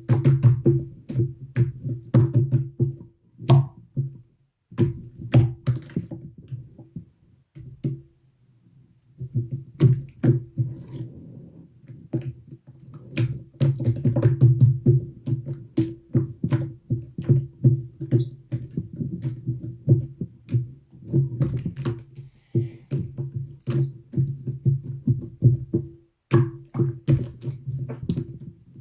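Slime being squeezed and worked by hand, making rapid wet clicks and pops, with a few short pauses.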